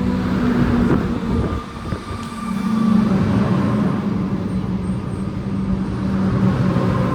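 Comeng electric suburban train running at a station, with a steady low hum over rumbling rail noise.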